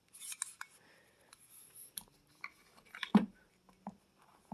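Handling noise from a 1911 pistol fitted with polymer grips: scattered light clicks and rubs, with one louder knock about three seconds in.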